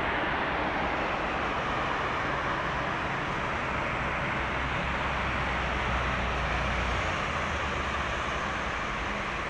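Steady jet engine roar from airliners: a narrow-body jet taxiing close by on idle thrust, with a low rumble swelling in the middle.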